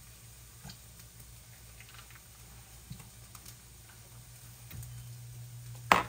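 Faint scattered clicks and light taps of kitchen items being handled, over a steady low hum that gets a little louder near the end, then one sharp clack as something hard is set down.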